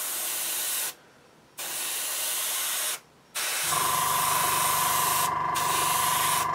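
Airbrush spraying metallic paint with a steady hiss, cut off twice briefly as the trigger is let go. About three and a half seconds in, the airbrush compressor's motor starts and keeps running with a steady hum and whine under the spray.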